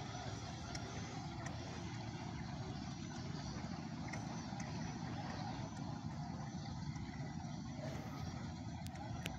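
Steady engine drone of outboard motors on boats running on the river.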